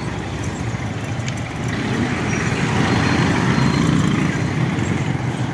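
Street traffic: motorcycle engines running with road noise, growing louder about two seconds in and easing slightly near the end.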